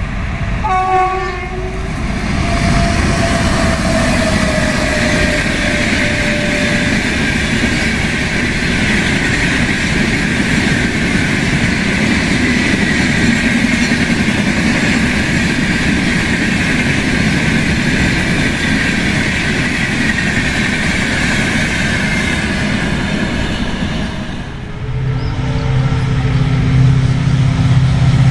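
A train horn sounds briefly, then a train passes with a long, steady rush of wheels on rail. About 24 seconds in the rush gives way to a steady low engine hum.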